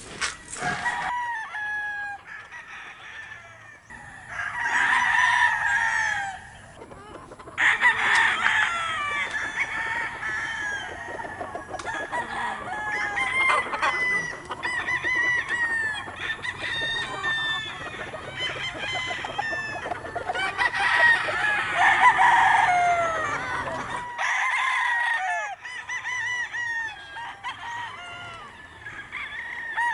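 Many gamecock roosters crowing over one another, with clucking between the crows. Louder bursts of crowing come about five, eight and twenty-one seconds in.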